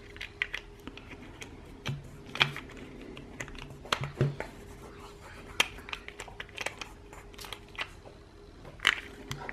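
Irregular small plastic clicks and taps as the battery end cap of a Scholl Velvet Smooth electric foot file is handled, twisted and pressed into place.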